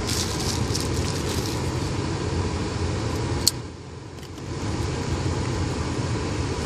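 Steady low rumble and hiss of a car cabin with the engine running, with a single sharp click about halfway through and a brief muffled dip just after it.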